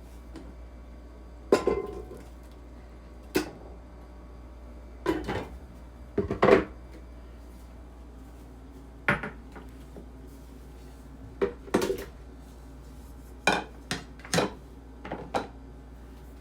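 Kitchen utensils and cookware clinking and clattering: about a dozen separate knocks spread irregularly, some in quick pairs.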